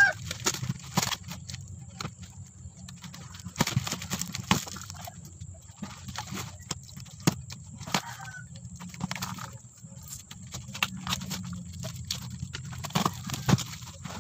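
Cardboard box and packing tape being torn open by hand: irregular ripping and crackling of cardboard and tape, with a chicken calling in the background at the start and again about eight seconds in.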